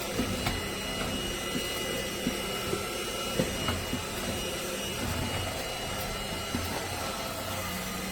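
Cordless stick vacuum running steadily, a constant motor hum with a high whine over it and a few light clicks.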